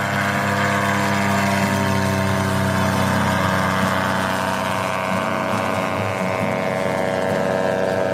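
Engine and propeller of a small ultralight aircraft running at takeoff power as it rolls, lifts off and passes close by. A steady, loud drone whose pitch falls slightly in the second half.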